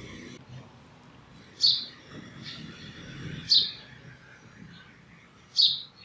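A sparrow chirping three times, about two seconds apart: short, sharp calls that each drop quickly in pitch.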